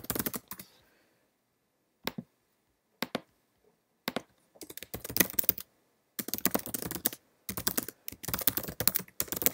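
Typing on a computer keyboard: a few isolated keystrokes, then longer runs of quick key clicks from about four seconds in, with short pauses between the runs.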